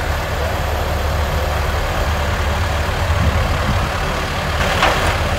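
Heavy diesel excavator engine idling with a steady low hum. Near the end comes a short click and rattle as a side service door's latch is released.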